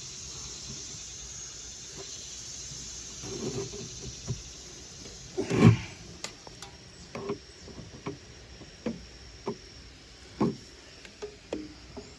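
Handling knocks over a steady high hiss: one loud thump about five and a half seconds in, then a string of short, light knocks and clicks.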